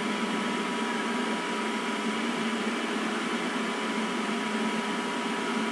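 Steady machine-like hum and hiss, with a faint constant high tone, unchanging throughout.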